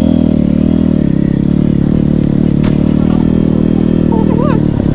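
Royal Enfield Meteor 350's single-cylinder engine running at a steady pace while the motorcycle is ridden, its pitch wavering slightly early on and then holding even.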